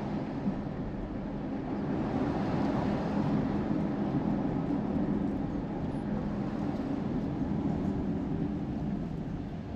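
Car driving, heard from inside the cabin: a steady low rumble of engine and tyre noise, swelling a little about two seconds in and easing near the end.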